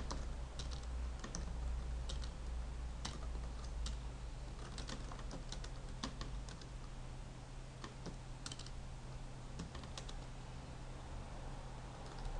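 Computer keyboard being typed on: irregular, unevenly spaced keystroke clicks, a few a second, over a low steady hum.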